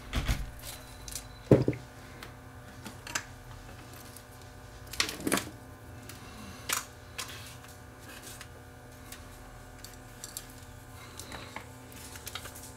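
Scattered small clicks and knocks of tools and parts being handled on a workbench during soldering, over a steady electrical hum.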